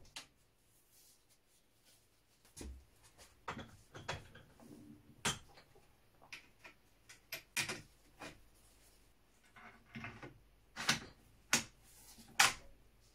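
Irregular clicks and knocks of a Chassepot M1866 rifle being handled on a workbench: metal parts and the wooden stock knocking and clicking as it is picked up and turned over, with the sharpest clicks near the end.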